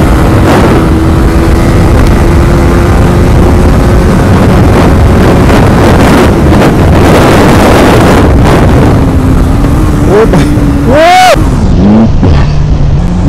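Motorcycle engine running at speed under heavy wind rush on the microphone, with a steady engine note for most of the ride. About ten seconds in, the engine note rises and falls a few times as the revs change.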